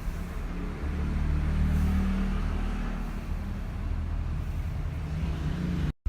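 A cat snoring, a low rumble close to the microphone that swells about a second in and slowly eases off. It cuts off abruptly near the end.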